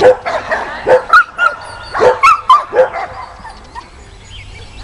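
A dog barking and yipping in quick bursts, mixed with short high yelps, for about three seconds, then dying down.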